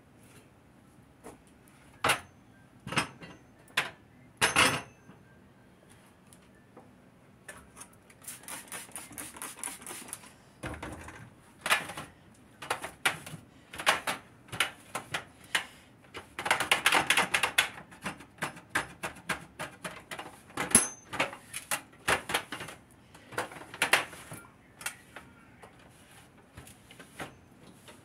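Kitchen items being handled and set down on a countertop: a string of sharp clicks and knocks, with a scratchy noise lasting about two seconds midway through.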